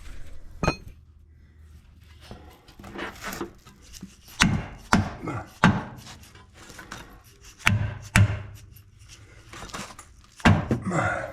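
A new control arm being pounded into place in a Honda Pilot's front suspension: about seven sharp knocks at irregular intervals, with scraping and shifting of parts between them.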